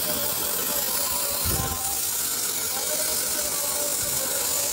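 Oxy-fuel cutting torch hissing steadily as its oxygen jet cuts a curve through thick steel plate. There is a low thump about a second and a half in.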